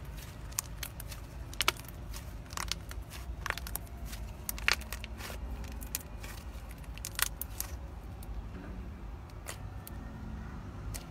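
Thick slime being stretched, folded and pressed by hand, giving off irregular sharp clicks and pops over a low steady hum. The clicks thin out after about eight seconds.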